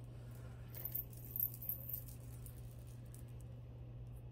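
Costume jewelry pieces jingling and clinking faintly as they are handled. A few light metallic clinks come about a second in, over a low steady hum.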